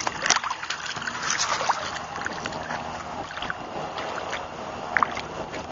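Water sloshing and splashing close to the microphone, with scattered sharp clicks and rustles over a steady hiss, as a wolf moves through shallow lake water.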